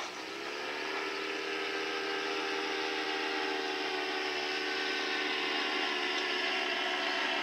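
A steady motor whir with a clear pitch that dips at the start, climbs back within about a second, then holds, growing slightly louder.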